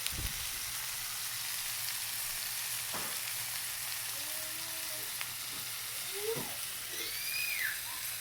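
Steaks, a thick tomahawk ribeye among them, sizzling steadily in their fat on a hot Blackstone flat-top griddle.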